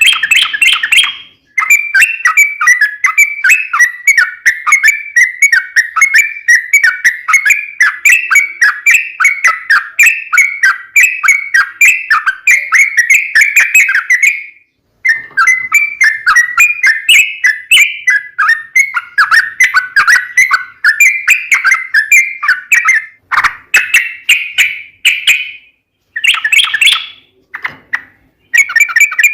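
Yellow-vented bulbul (trucukan) singing a long, rapid run of chattering notes, broken by a short pause about halfway through and a few short breaks near the end.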